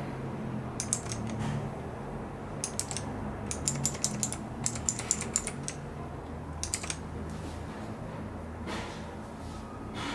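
Keys being pressed on a TiROND T10 computer keyboard: short bursts of sharp clicks, a few quick presses at a time, with pauses between, over a low steady hum.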